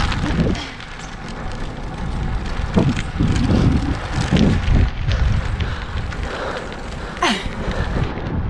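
Wind buffeting the microphone of an action camera on a moving road bike, a gusting low rumble mixed with tyre noise on asphalt that swells and dips unevenly.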